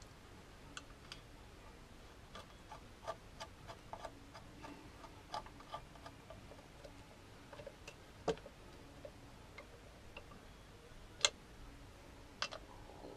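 Faint, irregular metallic clicks and clinks of a socket wrench working bolts back into the engine side of a Kawasaki ZZR1400. There are small clusters of clicks, with two sharper clinks about eight and eleven seconds in.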